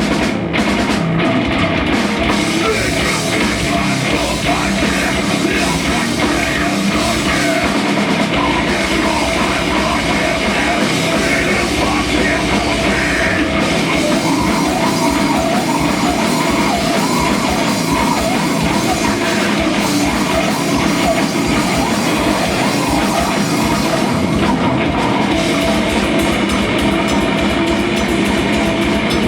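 A rock band playing a heavy, punk-edged song live, with electric guitar and a drum kit, loud and steady.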